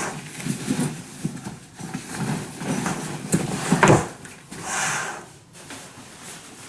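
Gear being handled and unpacked from a suitcase: rustling, with irregular knocks and a louder thump about four seconds in, then a short swish.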